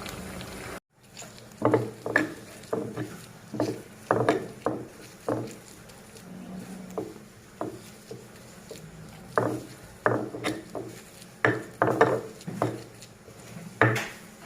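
A pestle knocking and grinding in a mortar (cobek and ulekan), crushing fried tempeh and chili into sambal. The knocks come irregularly, sometimes in quick pairs or clusters.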